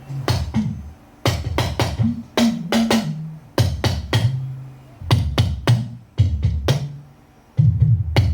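Talking drum being beaten in quick rhythmic phrases, its low notes sliding and stepping up and down in pitch as the drum is squeezed between strokes. The playing pauses briefly about a second in and again around seven seconds in.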